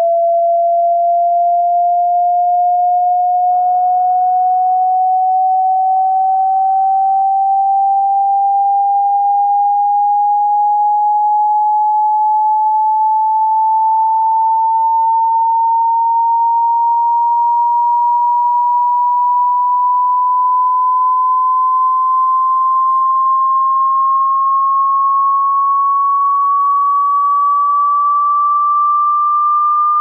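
Pure sine-wave test tone gliding slowly and steadily upward in pitch, from about 690 Hz to about 1,230 Hz: a frequency sweep for a hearing test.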